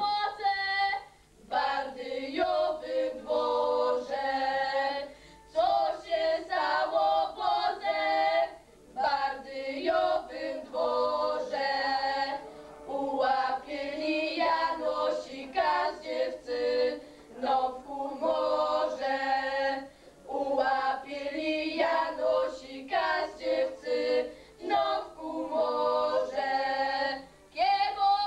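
A girls' folk vocal group singing together unaccompanied, a cappella, in phrases with short breaks between them.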